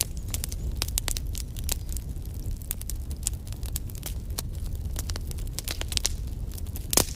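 Wood fire crackling in a fireplace: irregular sharp pops and snaps over a steady low rumble of the flames, with one louder snap near the end.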